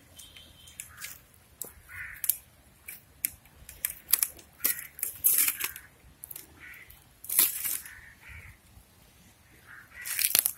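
Small open fire of dry twigs and leaves crackling, with sharp pops and a few louder rustling crunches of dry material. Crows caw several times in the background.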